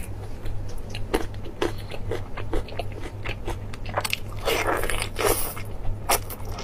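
Close-miked eating sounds of biting into and chewing sauce-glazed braised meat: a run of wet mouth clicks and smacks, with a denser burst of wet mouth noise about four and a half seconds in. A steady low hum runs underneath.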